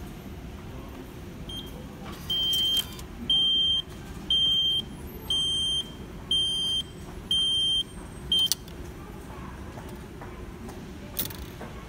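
Station fare adjustment machine beeping as it returns the Suica IC card from its charge slot, prompting the card to be taken: a high single-tone beep, six half-second beeps about once a second, then two quick short beeps that end as the card is pulled out. A faint click follows near the end, over steady station hum.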